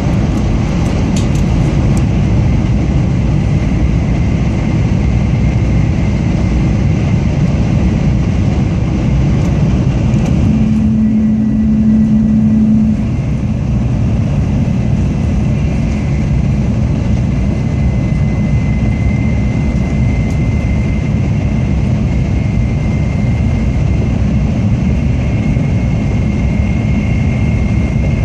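Steady running noise of a Tokaido Shinkansen Kodama train at speed, heard inside the passenger car: a low rumble with hiss. About ten seconds in, a steady low hum stands out for roughly two seconds.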